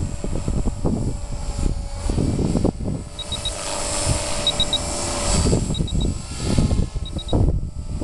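Walkera V450 electric RC helicopter flying 3D manoeuvres overhead, its rotor and motor whine rising and falling under heavy wind buffeting on the microphone. From about three seconds in, a short triple electronic beep repeats roughly every 1.3 seconds.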